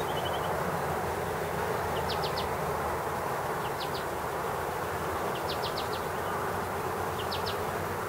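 Steady outdoor background hum. Short groups of three or four quick high chirps come every second or two.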